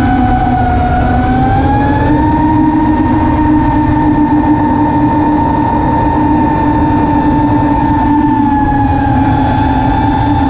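Brushless motors and propellers of a 5-inch FPV racing quadcopter (T-motor F40 III 2400kv) whining steadily over a rush of wind, heard from the onboard camera. The whine steps up in pitch about two seconds in as the throttle rises and sags a little near the end.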